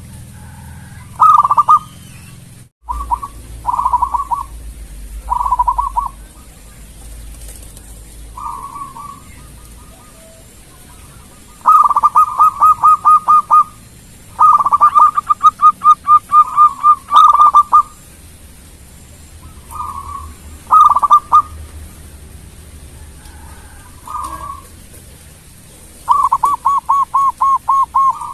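Zebra dove (perkutut) cooing. Short single notes come every second or two at first. Longer runs of quick, evenly spaced staccato notes at about five a second follow about twelve seconds in, again around fifteen seconds, and near the end.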